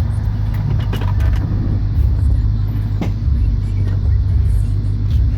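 Dodge Dakota R/T's 5.9-litre V8 running with a steady low rumble, broken by a popping sound: sharp pops about a second in and again about three seconds in.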